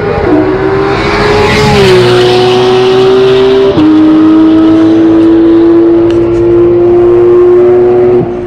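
Sports car engine under hard acceleration on a race track. Its note steps down at two upshifts, about two and four seconds in, climbs slowly in between, and eases off near the end.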